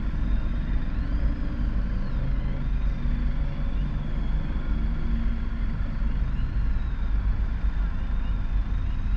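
Steady low rumble of road traffic heard from inside a car's cabin, with a faint high tone that rises and falls a few times above it.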